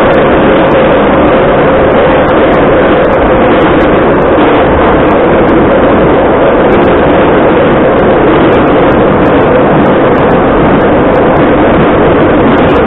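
Metro car type 81-714.5 heard from inside the passenger saloon while running between stations: a loud, steady roar of wheels and running gear with a steady hum through it.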